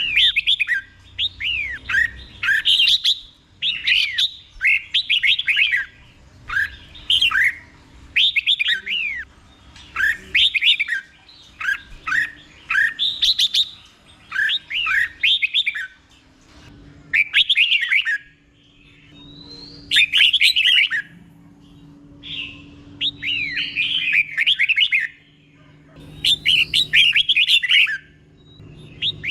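Red-whiskered bulbul singing: short phrases of quick sliding whistled notes, repeated one after another every second or two with brief pauses. A faint steady low hum runs underneath.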